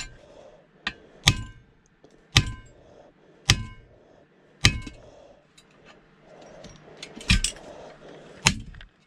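Hammer striking metal in a series of sharp, ringing clangs, roughly one a second, with a pause of a couple of seconds before the last two blows.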